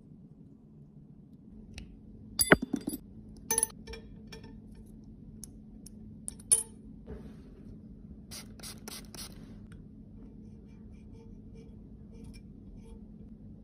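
Small steel tools clicking, clinking and scraping against metal parts. There are a few sharp clicks and clinks in the first half, the loudest about two and a half seconds in, then a quick run of short scraping strokes about eight to nine seconds in, then faint light ticks.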